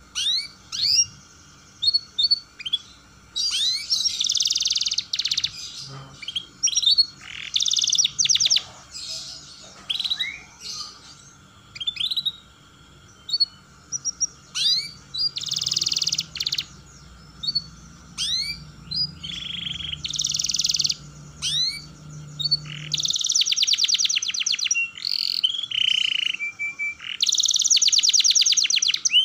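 Domestic canary singing: quick rising chirps broken by bursts of fast rolling trills, the longest rolls near the end.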